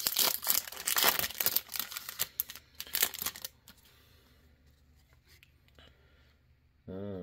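Foil wrapper of a Bowman U trading card pack being torn open and crinkled, loud and crackly for about three and a half seconds, then stopping. A brief steady hum sounds near the end.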